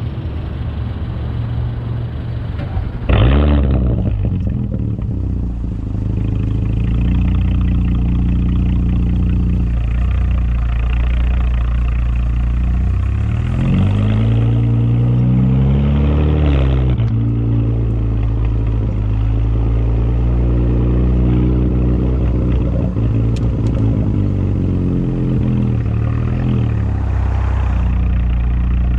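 Audi S5 B9's turbocharged 3.0-litre V6, with an AWE Track Edition exhaust and Luft-Technik intake, running at road speed. It surges suddenly louder about three seconds in, then twice climbs in revs under acceleration and drops back, around the middle and near the end.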